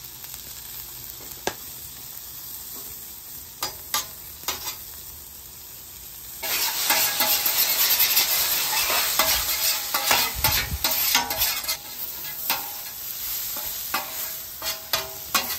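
Shallots and zucchini sizzling in oil on a hot steel flat-top griddle, with scattered sharp clicks of a metal spatula on the steel. About six and a half seconds in, a much louder hiss sets in as the spatula scrapes the steaming griddle. It eases back near the end to sizzling with spatula scrapes and taps.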